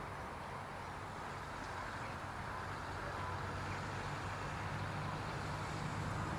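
Low, steady engine hum that grows slightly louder.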